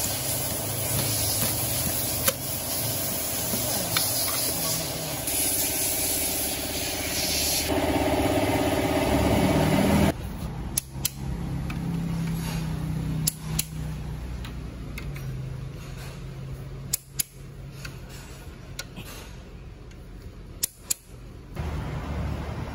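A steady machine-like running noise with a light knock or two, which cuts off abruptly about ten seconds in. After that come sharp single clicks, mostly in close pairs a few seconds apart, from a torque wrench tightening the connecting-rod cap bolts of an Isuzu 4HK1 engine block.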